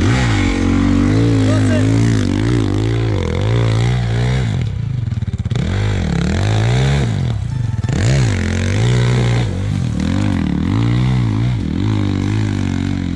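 Gas Gas 300 two-stroke enduro motorcycle engine revving up and down over and over in short throttle bursts, with brief drops between them, as the bike is ridden slowly through a technical section.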